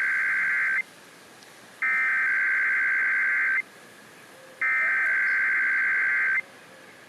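Emergency Alert System SAME header data bursts over radio: harsh, buzzing digital screeches, the end of one burst and then two more, each just under two seconds long with about a second of hiss between them. The three repeated headers are the digital code that opens an EAS Required Monthly Test, ahead of the two-tone attention signal.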